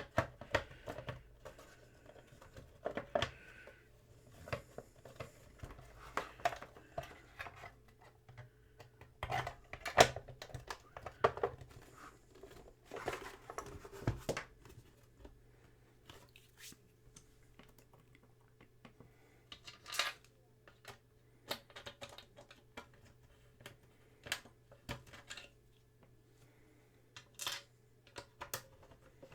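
Irregular clicks, taps and rustles of small parts being handled and fitted back onto a Commodore Datasette tape deck during reassembly, over a faint steady low hum.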